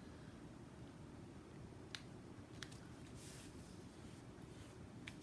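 Near silence with a few faint clicks and a light rustle as paper card and craft stamps are handled on a table.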